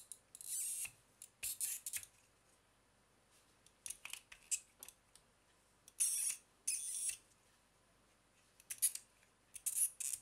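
Plastic Rubik's Snake being twisted by hand: short bursts of clicking, rasping plastic as its wedge segments are turned against one another, in about eight separate turns with pauses between.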